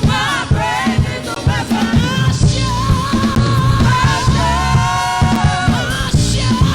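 Live gospel worship music: a band with drums and bass under voices singing, with a sustained vocal run a little past the middle.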